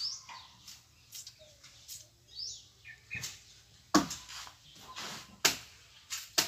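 Machete chopping into tree branches: three sharp strikes in the second half, a second and a half apart and then closer, with fainter knocks before them. Birds chirp in between.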